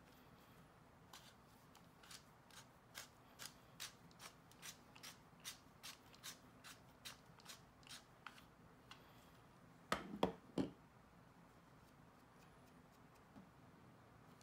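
Cue shaft being turned in a BillKing CACO hand-held tip tool, giving a run of sharp, evenly spaced clicks about two or three a second for several seconds. A cluster of louder knocks comes about ten seconds in.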